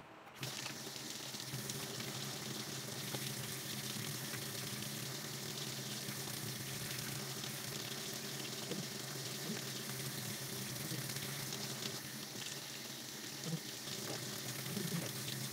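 Tap water running steadily into a sink while hands are washed, with a few faint knocks near the end.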